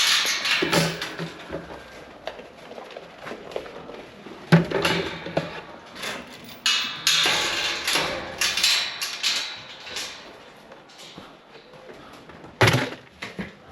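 Grain being poured into feeders, a rushing hiss that is longest about seven seconds in, among knocks and rattles of scoop, feeders and gates.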